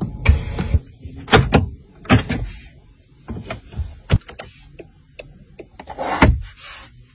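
Clicks and knocks from a Range Rover's cabin switches and storage-compartment lids being pressed, opened and shut: about half a dozen separate clicks, with a short louder rush about six seconds in as the centre-console cover slides.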